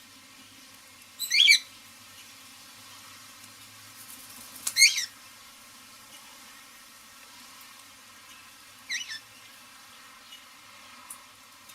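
Parrot giving three short, shrill squawks, about a second, five seconds and nine seconds in, the middle one the loudest and the last the faintest.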